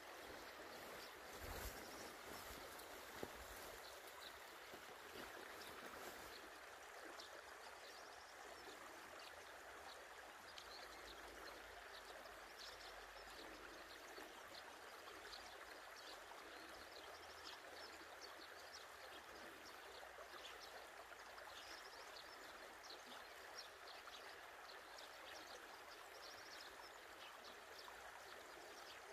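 Faint steady trickling of a shallow creek running over stones, with light scattered ticks above it.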